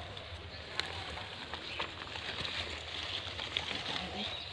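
Nylon cast net, leaves and grass rustling and crackling as the net holding a large fish is gathered up and carried, with scattered light clicks.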